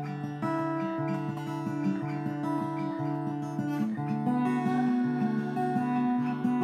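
Guitar being strummed, a run of chords and single notes ringing on and changing every fraction of a second.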